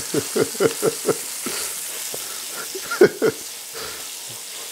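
Crumbled sausage sizzling in hot fat in a stainless steel pan as it is stirred with a spatula. There is a quick run of short strokes in the first second and two louder ones about three seconds in.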